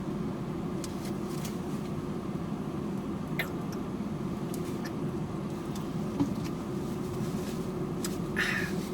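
Steady low hum inside a car cabin, typical of a car idling with the fan running, with a few faint clicks and a short rustle near the end.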